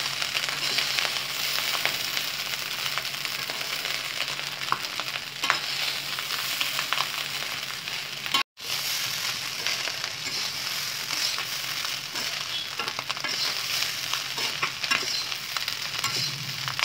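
Chicken fried rice sizzling in a black wok on low flame while a steel ladle stirs and scrapes through it, with light clicks of the ladle against the pan. The sound cuts out for a split second about halfway through.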